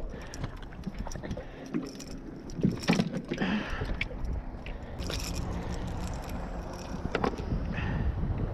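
Several sharp knocks and metallic clicks as a freshly landed fish and the metal gear are handled in a small aluminium boat, over a steady low rumble of wind.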